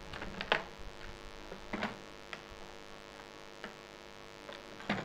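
Steel sockets and ratchet attachments of a Hogert 1/4-inch socket set clicking and knocking against each other and the plastic case as they are handled, a handful of separate sharp clicks. A steady electrical hum underneath.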